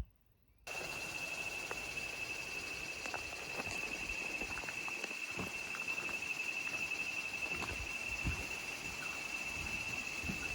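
A steady, high, single-pitched insect drone in tropical forest, starting abruptly less than a second in, with scattered light knocks and thumps over it.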